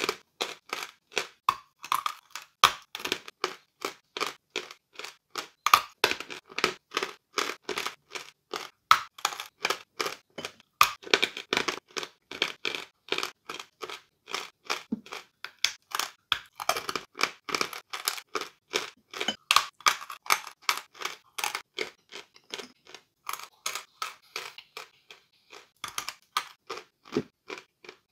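Close-up crunching of a piece of white chalk being chewed, crisp crunches about three a second with a couple of short pauses.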